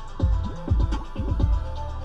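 Electronic background music: a run of deep bass hits, each sliding down in pitch, over a steady bass note and a ticking beat.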